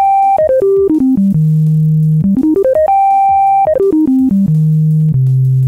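Helm software synthesizer playing a single clear tone that steps note by note down to a held low note, back up to a held high note and down again, the pitches snapped to the notes of the selected scale.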